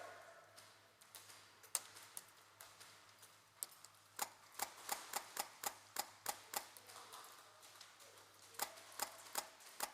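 Airsoft guns firing single shots: sharp clicks, a few scattered at first, then a quick run of about three a second from about four seconds in, and another short run near the end.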